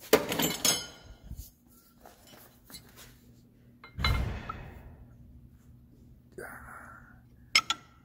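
Metal clanking as a John Deere 4440's water pump is worked off the engine: a sharp clank with a metallic ring at the start, a heavy thunk about four seconds in, a brief scrape, and a ringing clink near the end, over a steady low hum.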